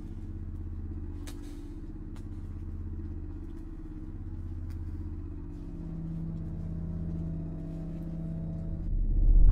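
Low ominous drone of a horror soundtrack, several low notes held together and swelling slowly, with a deep rumble building near the end.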